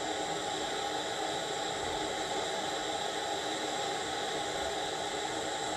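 Handheld propane torch burning with a steady hiss while its flame is held on bismuth chips being melted in a steel can.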